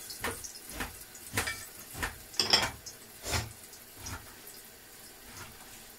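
Kitchen work sounds: a slow, uneven series of about seven short knocks and clatters that die away after about four seconds.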